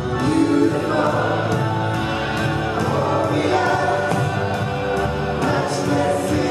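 Gospel praise song performed live by a choir and worship band: several voices singing together in held lines over a full band with bass and drums keeping a steady beat.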